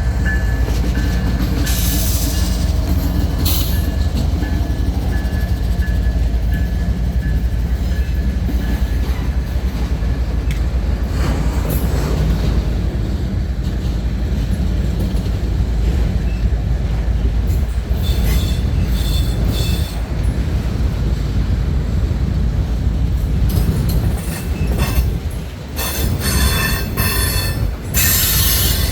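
CSX freight train rolling past with a steady, loud rumble of wheels on rail, its car wheels breaking into high screeching squeals now and then, the longest and loudest near the end.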